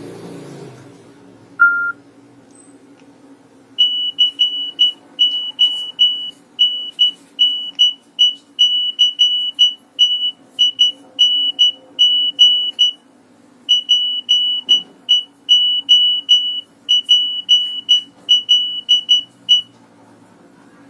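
A Nokia 2865 mobile phone playing a beeping ringtone: rapid short beeps, all at one high pitch, in a repeating rhythmic pattern that breaks off briefly partway through. A single lower beep sounds about two seconds in, before the tone starts.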